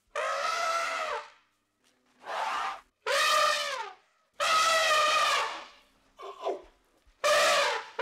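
A series of six pitched animal calls, each lasting about half a second to a second and rising and falling slightly in pitch, with short silent gaps between them. The fifth call is short and faint.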